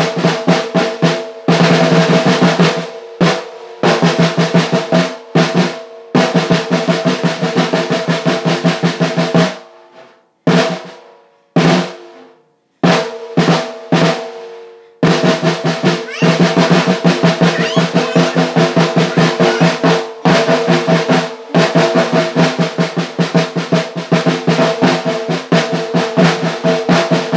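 Snare drum played in fast rolls and quick strokes, in runs of a few seconds broken by short pauses, with a steady ring sounding under the hits.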